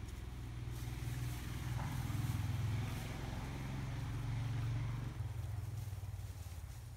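Low engine hum of a passing motor vehicle, growing louder and then fading away about five seconds in.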